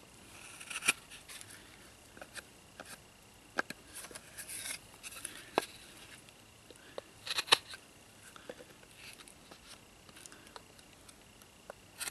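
Knife blade carving a notch into a wooden bow-drill hearth board: irregular short scrapes and clicks of the blade cutting the wood, the loudest a little past the middle.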